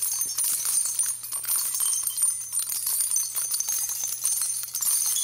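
A high-pitched jingling shimmer like small bells or chimes, used as a transition sound effect, with a faint steady low hum underneath.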